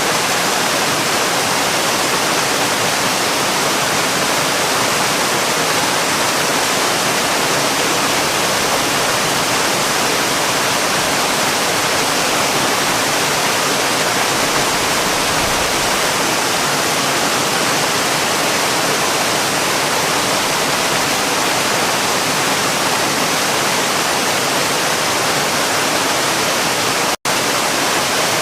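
Waterfall: a loud, steady rush of falling water that stays even throughout, broken only by a momentary drop-out near the end.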